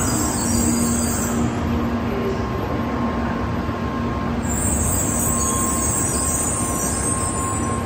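N700A Shinkansen train rolling slowly into a station platform and coming to a stop, a steady low rumble and hum with a high squeal in the first second and again from about halfway until it halts.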